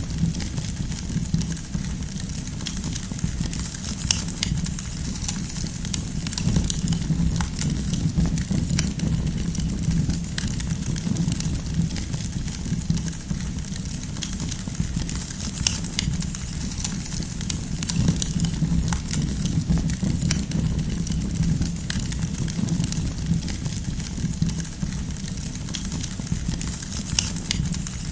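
Wood campfire burning: a steady low rumble of flames with frequent, irregular sharp pops and snaps from the burning firewood.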